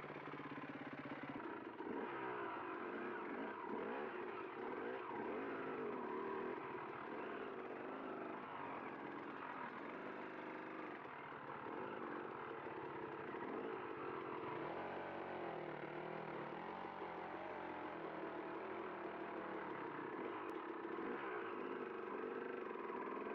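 Enduro trail-bike engine running continuously under load, its note rising and falling with the throttle.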